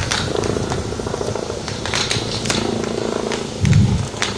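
Large outdoor crowd holding a minute's silence: a low, steady hum of crowd noise with several sharp cracks scattered through it, and a brief low rumble near the end.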